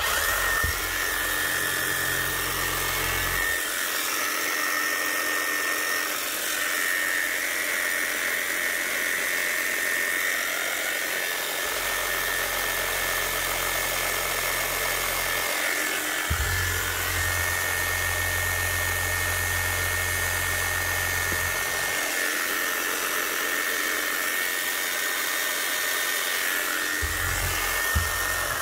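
Makita HR0870C hammer's electric motor running steadily on a fresh set of CB350 brushes, with a constant high whine. It runs but not at its best, with a little sparking at the brush holders. The owner puts this down to a worn, concave commutator that the new brushes have yet to bed into, or else an armature on its way out.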